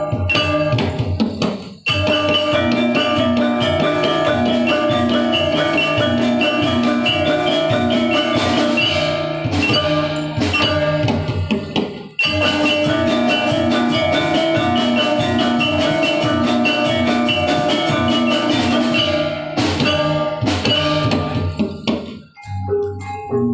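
Gamelan-style dance accompaniment: tuned metal percussion and drums playing a repeating melodic pattern. The music drops out for an instant about two seconds in, again about twelve seconds in, and near the end.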